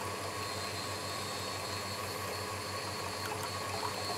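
Steady whirring hum of an electric mixer running, whipping cream.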